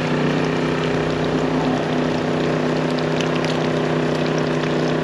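A small generator engine running steadily with an even hum, with the light crackle of fish frying in oil on the electric stove it powers.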